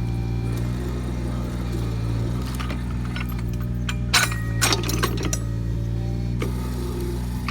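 Takeuchi TB219 mini excavator's diesel engine running steadily while its cone splitter works through a log, with a cluster of sharp cracks and splintering as the wood splits about four to five seconds in.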